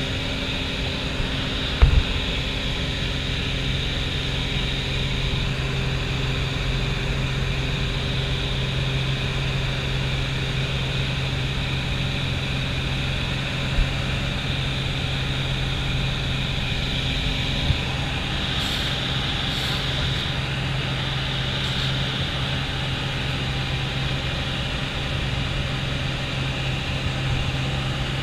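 Steady drone of a small high-wing plane's engine and propeller, heard inside the cabin, with a few brief knocks.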